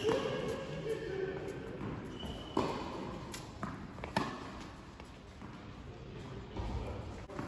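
A tennis ball being struck by a racket and bouncing on an indoor hard court: four sharp hits in the first four and a half seconds, echoing in a large hall, then quieter.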